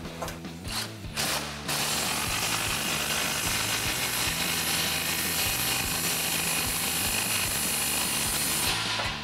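Cordless electric ratchet with a 15 mm socket, running down the nut of an exhaust hanger clamp. It runs steadily for about seven seconds, starting about a second and a half in and cutting off abruptly near the end, with a few short clicks before it starts.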